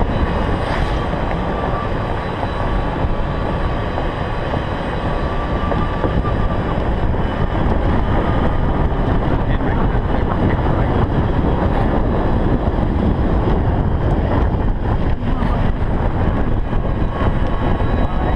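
Golf cart driving along a paved cart path: a steady rumble of the cart and its tyres on the pavement.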